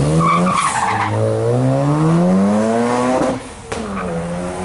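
Mazda RX-7's twin-turbo rotary engine revving hard as the car accelerates away, its pitch climbing, dropping at an upshift about a second in, then climbing again through the next gear. After a brief dip a little past three seconds in, a steadier, lower engine note follows.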